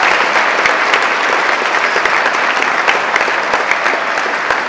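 Audience applauding: a dense, steady patter of many hands clapping, easing off slightly near the end.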